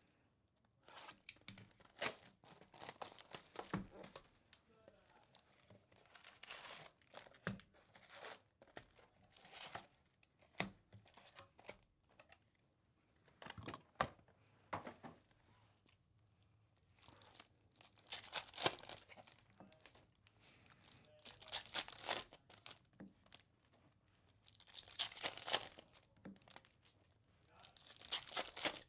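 Wrappers of 2024 Topps Series 2 Baseball card packs being torn open and crinkled by hand, in repeated bursts of tearing and rustling a few seconds apart, the busiest near the end.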